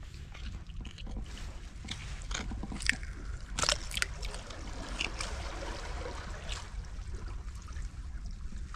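A bivalve shell being pried open by hand: sharp cracks and clicks of shell, the loudest about three seconds in, with wet scraping as the halves separate, over a low steady rumble.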